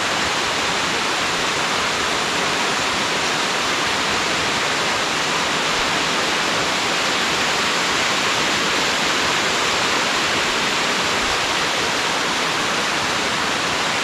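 A narrow mountain waterfall pouring down a rock face onto stones and into the stream below: a steady, even rush of falling water.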